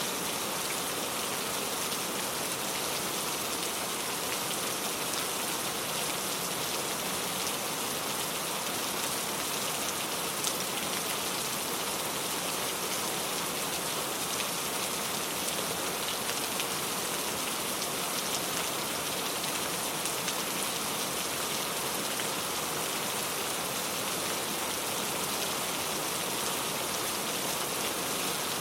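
Steady rain falling, a dense even patter of drops, with here and there a single louder drop.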